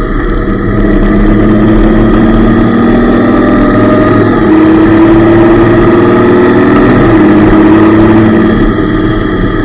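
Motorcycle engines running at road speed, their note rising slowly. The pitch steps up about four and a half seconds in and falls back about two seconds later.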